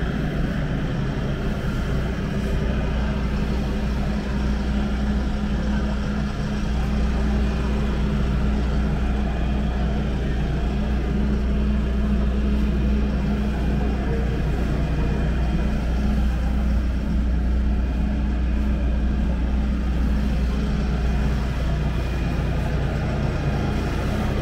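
Landini Rex 3-080F tractor's diesel engine idling steadily, a low even drone with no change in speed.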